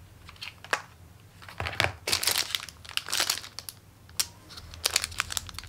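Packaging crinkling and rustling in irregular crackly bursts as a parcel is unwrapped and its contents handled, busiest about two to three seconds in.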